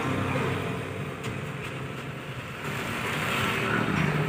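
An engine running steadily, a low hum that grows slightly louder toward the end, with a couple of faint knocks.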